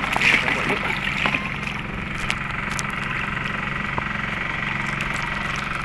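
A steady low hum like a running engine, with a constant higher buzz over it and a few light knocks in the first seconds.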